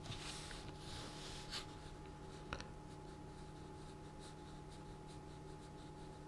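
Small pointed watercolour brush stroking over paper: faint soft swishes in the first two seconds or so, with a couple of light ticks.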